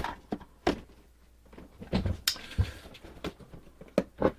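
Cardboard Funko Pop boxes being handled and set down: scattered light knocks and taps with some rustling, the sharpest knock a little after two seconds in.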